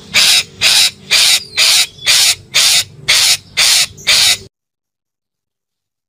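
Red-breasted parakeet giving a rapid series of about nine harsh, screeching calls, about two a second, ending abruptly about four and a half seconds in.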